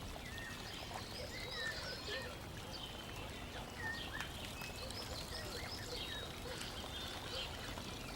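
Faint, scattered short chirps, bird-like in shape, over a low steady hiss.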